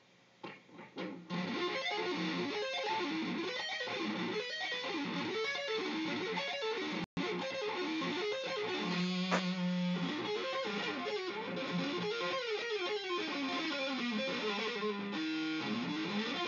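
Electric guitar playing fast runs of notes up and down, with a note held about nine seconds in. The sound cuts out for an instant about seven seconds in.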